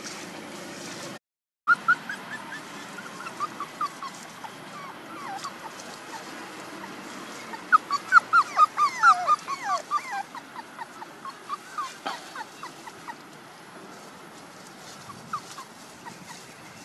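Month-old puppies whimpering and yelping in short, high, falling squeaks, most densely in a quick run in the middle.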